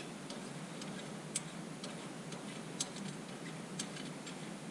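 Light, irregular clicking as the shift knob adapter is threaded down onto the shifter lever, with three sharper clicks standing out.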